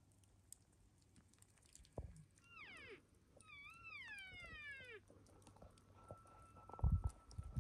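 Two high, descending elk mews: a short one about two and a half seconds in, then a longer one that lifts briefly before sliding down. Low thumps about two seconds in and again near the end, the loudest of them about seven seconds in.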